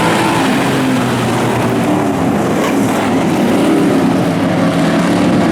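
Several street stock race car engines running hard together around a dirt oval, with the pitch of different cars rising and falling as they lap.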